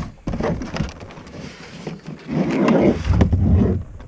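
Cardboard and plastic packaging of a Pokémon TCG special collection box being torn open and handled, rustling and scraping with sharp clicks, loudest from about two seconds in to near the end.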